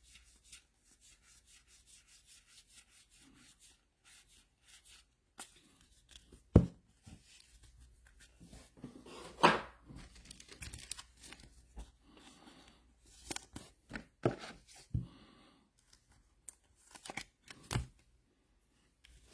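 Trading card packs being torn open and cards handled: a run of soft, quick ticks at first, then several sharper tears and knocks from about six seconds in.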